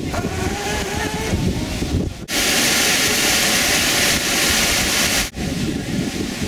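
Water rushing through a channel beneath a steel grating: a loud, steady hiss that comes in suddenly about two seconds in and stops abruptly about three seconds later. Before and after it, wind noise on the microphone.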